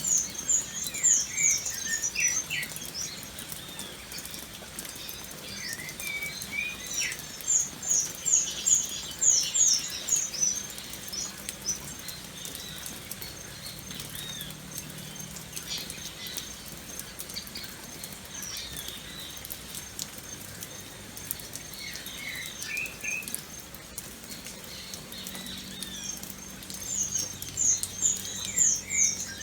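Steady rain pattering, with birds calling over it: three loud bursts of rapid, high, quickly falling chirps, at the start, about a third of the way in and near the end, and scattered lower whistled notes between them.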